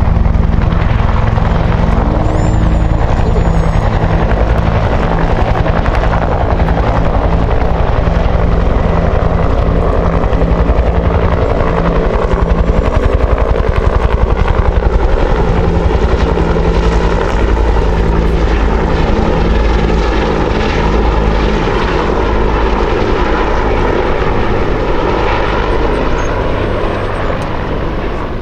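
A pair of Bell UH-1H Huey helicopters flying by, the two-bladed main rotors beating in a fast, even thump over the steady drone of their single turboshaft engines. Loud throughout, a little quieter near the end.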